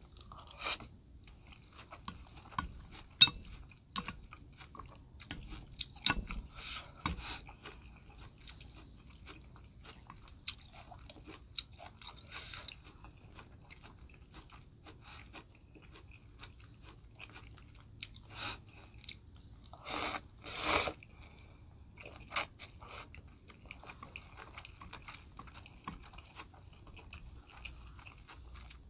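Close-miked eating sounds: wet chewing and biting of a tomato wedge, noodles and a fish cake ball, with small sharp mouth clicks throughout. Two louder noisy bursts about twenty seconds in, most likely noodle slurps.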